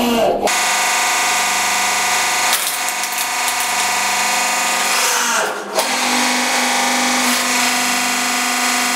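Hydraulic press running with a steady mechanical hum while its ram holds down on a flattened toy truck. The sound breaks off sharply about half a second in and again around five and a half seconds, then carries on.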